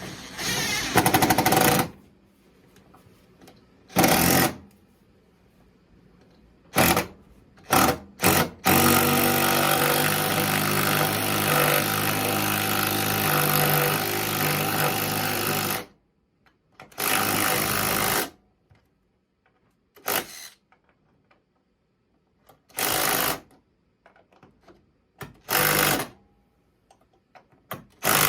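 Handheld power driver driving bolts down to secure a drill press, run in short bursts with one long steady run of about seven seconds near the middle.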